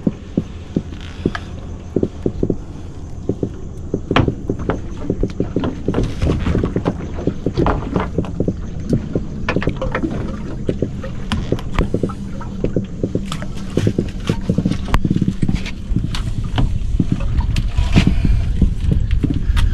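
Repeated knocks and slaps of a large bull redfish being handled on a boat deck, over a steady low hum; the knocks come thicker in the second half.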